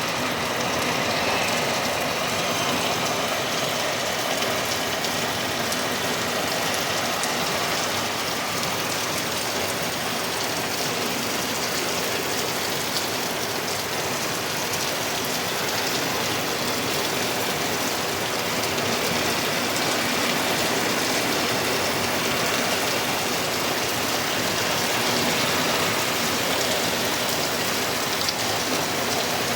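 Hard rain pouring down steadily, a dense, even hiss with no let-up.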